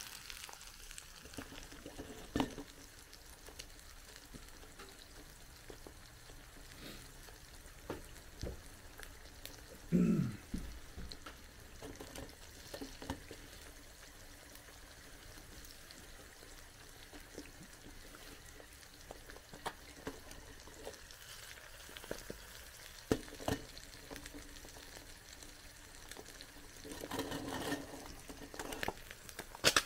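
Eggs frying in a nonstick pan over an alcohol stove: a faint, steady sizzle. A few light knocks and clicks of the pan and its clip-on gripper handle come through it, the loudest about a third of the way in.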